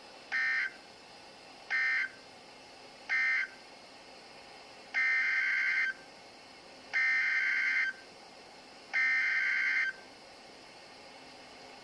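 Emergency Alert System SAME data bursts: three short buzzy bursts of two-tone digital data, the end-of-message code closing one dust storm warning, then three longer bursts of about a second each, the header that opens the next warning.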